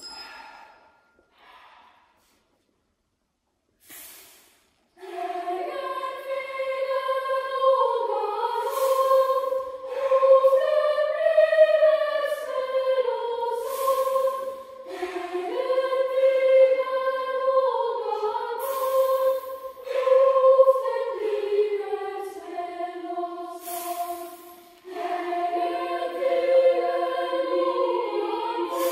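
Boys' choir singing a cappella in high, sustained chords. The singing starts about five seconds in after a few short soft sounds, and runs in phrases of about five seconds each, with a short hiss between phrases.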